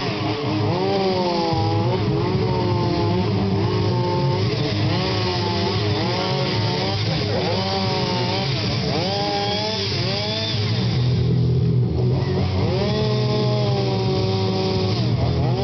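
Two-stroke chainsaw carving wood, its engine revving up and falling back again and again as the throttle is worked, with a brief drop in speed about three-quarters of the way through.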